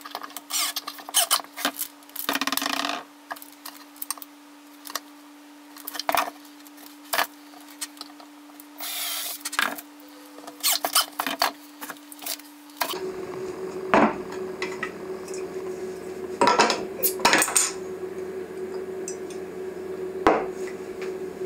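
A small hand plane scraping across the end of a wooden handle in short strokes, among clicks and knocks of hand tools on wood over a steady hum. About thirteen seconds in this changes to glass bottles clinking in a wooden six-pack carrier, a bottle cap prised off a mounted opener, and the bottle knocked down on a wooden table.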